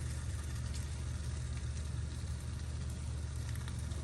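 Turkey bacon sizzling steadily in a frying pan, with a few faint light clicks. A steady low hum runs underneath.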